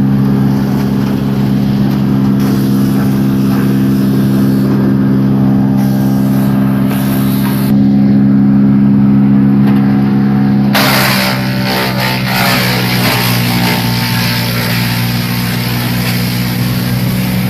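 Tow-behind 6-inch wood chipper's engine running steadily. About eleven seconds in, a loud rushing noise joins and the engine pitch dips slightly under the load, as wood goes through the chipper.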